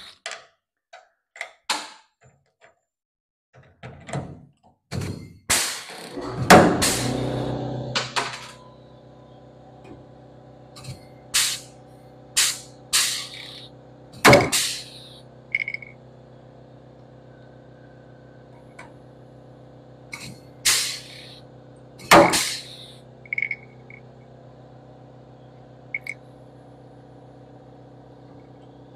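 Pneumatic rivet gun firing in about a dozen short bursts, setting steel rivets in a Corvette body bonding strip. A steady machine hum comes on about six seconds in and keeps running underneath.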